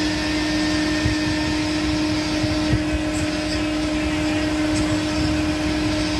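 Steady mechanical hum with a constant low tone, with a few faint ticks in the middle.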